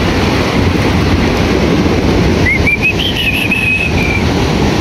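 Surf washing on the beach with wind on the microphone, a steady loud rush. About halfway through, a seabird calls in a quick run of high, whistle-like notes lasting under two seconds.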